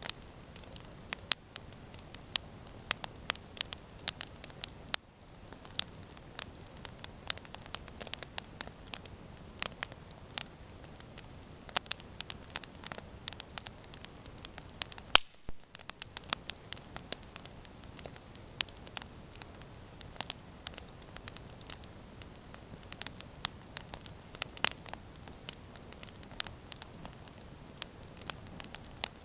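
Wood campfire crackling: irregular sharp snaps and pops over a low steady hiss, with one louder pop about halfway through.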